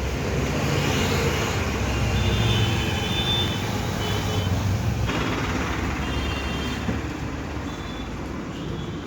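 Road traffic: a heavy vehicle running past close by, a steady rumble that swells at the start and slowly fades away.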